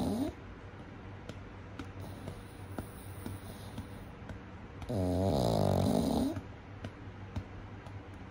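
Pug puppy snoring in its sleep: one loud, drawn-out snore with a dipping and rising pitch about five seconds in, lasting over a second, after the tail of another at the very start, with quiet breathing between.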